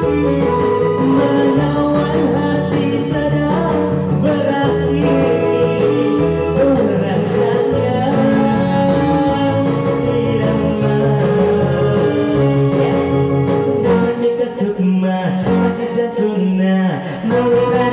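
Karaoke backing music with guitar, and a woman's voice singing along through the microphone.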